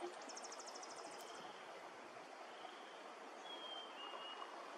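Faint outdoor ambience with a steady hiss. Near the start a bird gives a rapid high trill of about ten notes a second, lasting about a second, and a thin high whistle follows later.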